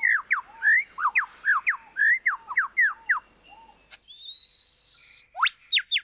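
A male superb lyrebird singing. First comes a rapid run of loud, clear whistled notes sweeping down and up, several a second. About four seconds in, a long rising whistle ends in a sharp upward whip-crack and two short notes, like an eastern whipbird's call.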